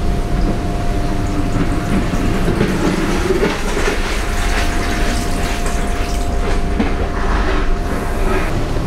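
Running noise of an EP3D electric multiple unit heard from inside its toilet compartment: a steady low rumble with a thin constant hum above it and scattered light knocks.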